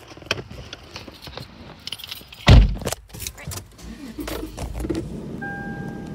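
Handling noise inside a car: clicks and rattling as the phone is moved around the centre console, with one heavy thump about two and a half seconds in. Then the car's low hum, and a steady electronic beep starts near the end.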